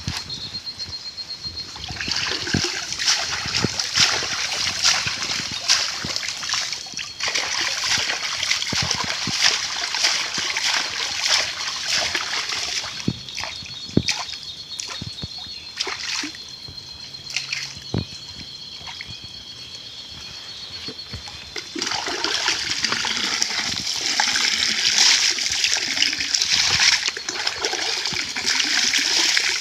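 Water splashing and dribbling in uneven bursts as someone washes with cold mountain spring water for ablution (wudhu), with a quieter spell about two-thirds through.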